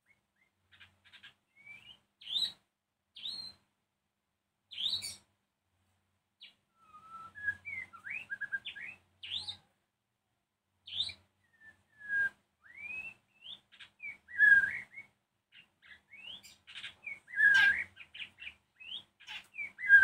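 White-rumped shama singing: a varied run of clear whistles, rising and falling glides and short sharp notes, in phrases broken by brief pauses, louder in the second half.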